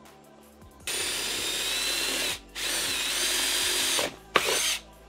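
Cordless drill boring a pilot hole through a golf cart's plastic dash panel. The motor whines in three runs: two of about a second and a half with a short pause between, then a brief burst near the end that starts with a sharp click.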